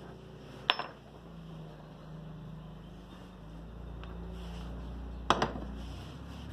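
Small metal carburetor parts clinking as they are handled, twice: once just under a second in and again about five seconds in, over a steady low hum.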